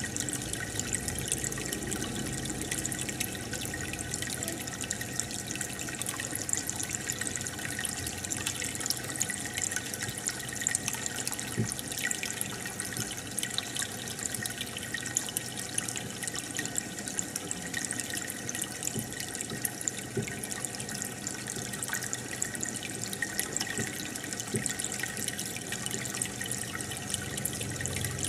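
Aquarium water bubbling and trickling steadily from the aeration stream, with many small pops of bubbles breaking at the surface.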